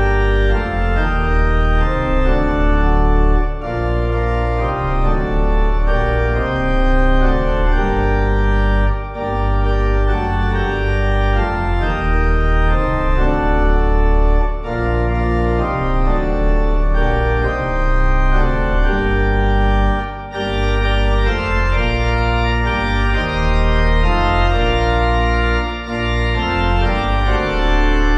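Church organ playing a hymn tune in sustained full chords over a deep pedal bass, with short breaks between phrases about every five or six seconds.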